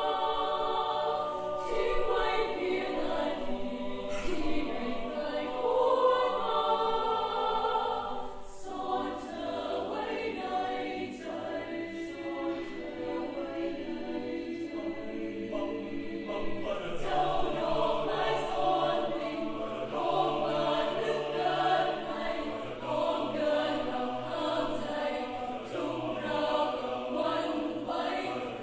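Choir singing in harmony, several voice parts at once, with long held notes.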